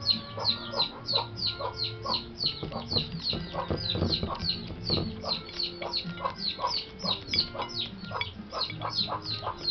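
Chickens calling: a steady run of high, falling peeps, about four a second, over lower clucking.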